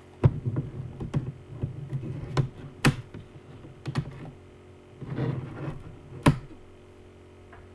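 Clicks, taps and a short rustle of CD box set packaging being handled and opened to get at a disc, ending with one sharp click about six seconds in.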